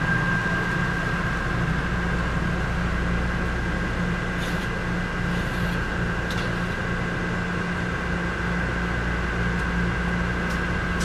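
Steady mechanical hum inside an Amtrak passenger car standing at a station, with a steady high whine over a low drone from the car's running equipment. Faint light ticks come about four and six seconds in.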